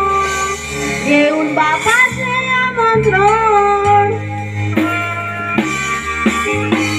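A young man singing a Konkani song into a microphone over live band accompaniment with guitar and drums. The voice holds a long note, then moves through a gliding melodic phrase; in the second half a regular drum beat comes to the fore.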